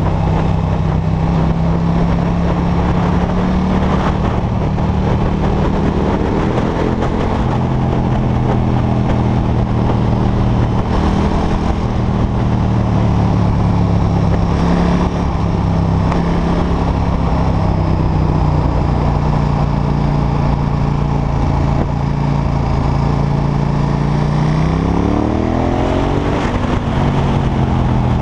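KTM 1290 Super Duke R's big V-twin engine running under the rider at a mostly steady pitch, heard over a steady rush of wind and road noise. Near the end it revs up in a quick rising climb as the bike accelerates.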